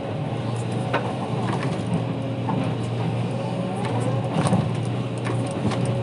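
Volvo hydraulic excavator's diesel engine running steadily under digging load, heard from the cab, with a few sharp knocks and clanks as the bucket and arm work the earth; the loudest knock comes a little past four seconds in.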